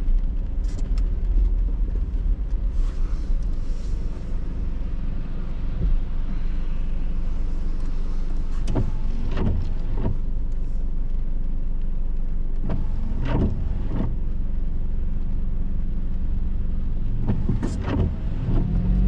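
Steady low road and engine rumble heard from inside a car driving on a wet street in the rain, with the windshield wipers sweeping across the glass about three times, each sweep a brief pair of swishes.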